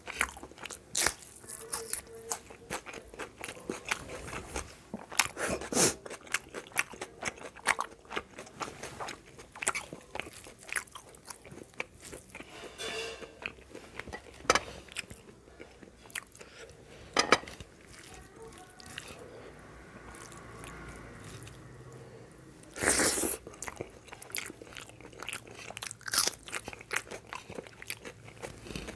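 Close-miked eating, with a person chewing and biting mouthfuls of curry and rice: a run of sharp crunches and wet mouth clicks. One louder noisy burst comes about 23 seconds in.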